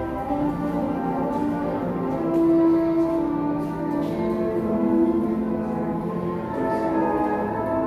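Orchestral music with brass, playing slow, held notes.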